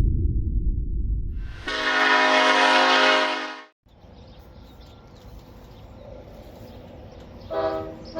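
A multi-chime locomotive air horn gives one loud, steady blast of about two seconds that cuts off abruptly. Near the end, a Nathan K5LA five-chime air horn, retuned to K5L notes with 3D-printed inserts, starts another blast.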